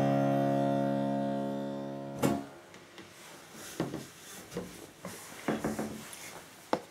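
Final chord of a muselaar virginal played with its harpichordium stop, the metal hooks buzzing against the strings, dying away and then cut off with a click about two seconds in as the keys are released and the dampers fall. After it, a few scattered light knocks and rustles.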